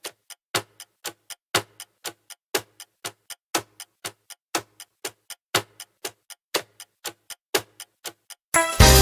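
Clock-style countdown timer ticking, about four ticks a second with every fourth tick louder. About eight and a half seconds in the ticking stops and loud background music with a beat starts.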